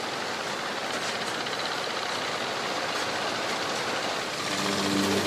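Steady, even noise of machinery running. Background music with held notes comes in about four and a half seconds in.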